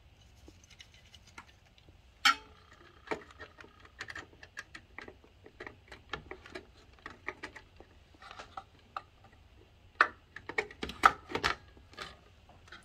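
Clicks and taps of printed circuit cards being handled and pushed into the edge connectors of a Revox A77's reproduce amplifier card cage, with a sharp click about two seconds in and a cluster of louder clicks near the end.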